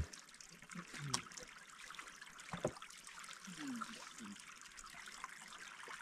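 River water running as a faint, even rush, with a couple of sharp knocks in the first half.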